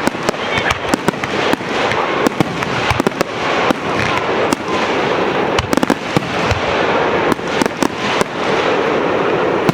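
Aerial fireworks display: a dense barrage of shell bursts, several sharp bangs a second over continuous crackling.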